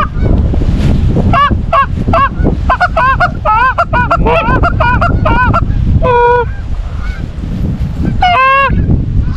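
Geese honking in a quick run of short honks, then two longer honks near the end, over a steady low rumble.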